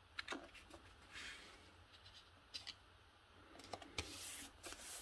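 Cardstock being handled and turned over on a cutting mat: faint light taps and clicks of paper against the mat, with a longer swish of paper sliding about four seconds in.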